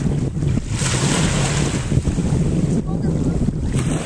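Wind buffeting the microphone over the wash of choppy water, swelling in a gust about a second in and easing off nearly two seconds later.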